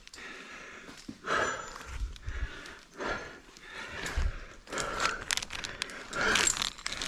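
A climber breathing hard with effort while working up a rope, with several uneven heavy breaths and scuffing and knocking of rope and gear in between.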